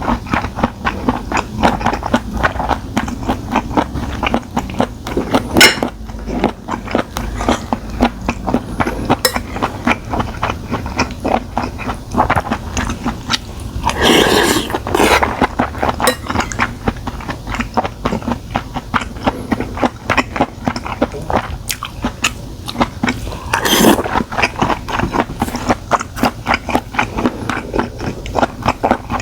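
A person chewing stir-fried octopus close to the microphone: quick, irregular, wet mouth clicks and smacks, with two louder, longer mouth sounds about halfway through and near the end.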